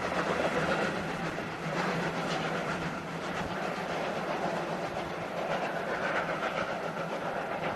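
Steam train running along the track: a steady noise of the train in motion with a few faint knocks.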